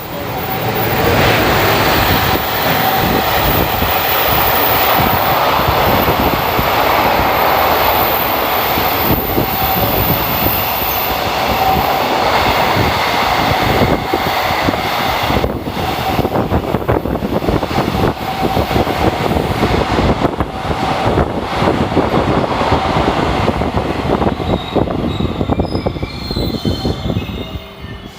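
Freight train hauled by an EF210 electric locomotive passing at speed: loud, steady rumble of the wagons with a rapid clatter of wheels over rail joints, easing off near the end.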